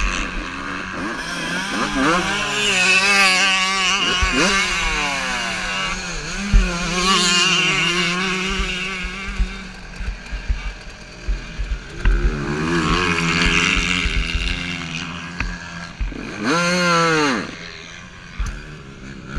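Two-stroke motocross bike engine revving up and down through the gears, heard from the rider's helmet camera. About ten seconds in the bike goes down and the engine note drops, with a run of knocks and thuds. Later the engine revs up and back down once sharply before pulling away again.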